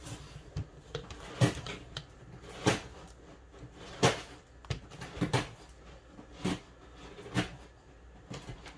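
Small plastic doll-accessory pieces clicking and tapping as they are handled and fitted together on a tabletop: irregular sharp clicks, roughly one a second.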